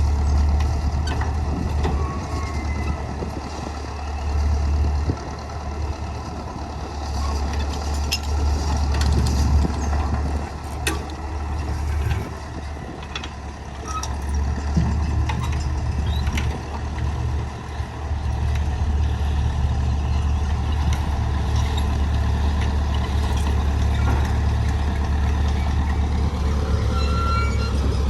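A vehicle engine running steadily, a strong low hum, with scattered short clicks and knocks.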